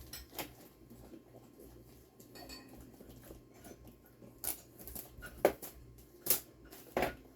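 Packaging of a small RC crawler being handled and opened by hand: rustling with a string of sharp clicks and knocks, the loudest about five and a half and six and a half seconds in.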